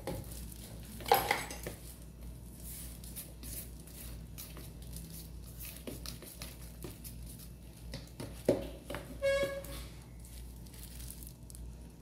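Spoon stirring flour into thick banana cake batter in a mixing bowl, with low scraping and a few sharp knocks of the spoon against the bowl: the loudest about a second in, two more near the end.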